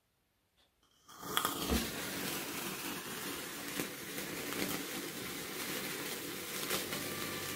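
A sparkler catches light from a candle about a second in, then fizzes and crackles steadily, a dense hiss peppered with sharp pops.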